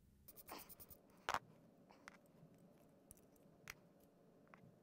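Faint clicks and taps of small rubber and nylon motor-mount parts being handled and lifted off the studs of a washer motor's metal base plate. The sharpest click comes about a second in, and a few lighter ticks are spread after it.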